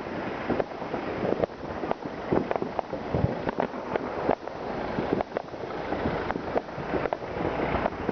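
Fireworks going off all around: dense, irregular bangs and cracks, several a second, over a continuous rumble of more distant explosions.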